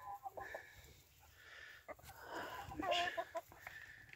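Hens clucking in short repeated calls, with a louder call about three seconds in.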